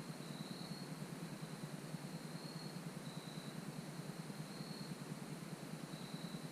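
Faint insect song: a thin, steady high-pitched tone with short, slightly higher chirps every second or so, over a steady low hiss.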